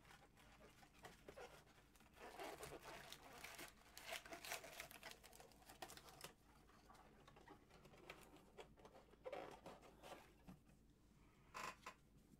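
Faint, intermittent rustling and crinkling of trading-card packs and their wrapping being handled as a hobby box is opened and its packs tipped out.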